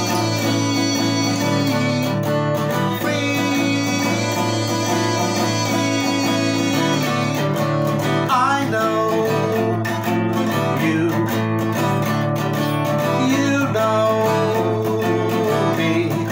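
Acoustic guitar strummed in a steady chord pattern. A man's voice sings over it in places from about eight seconds in.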